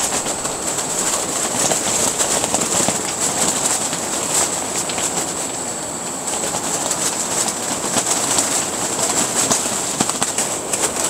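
Strong gusting wind buffeting a pop-up hub tent, with driven snow striking the tent's clear urethane window and fabric in many small ticks.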